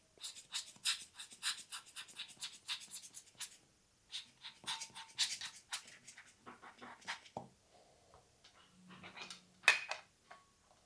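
Hand air blower squeezed over and over, giving short puffs of air: about four a second at first, then more irregular, with a louder puff near the end.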